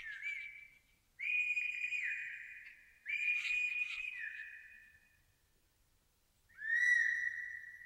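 Whistle-like tones: two held high notes about two seconds apart, then a pause, then a slightly lower note near the end. Each note starts sharply and fades away.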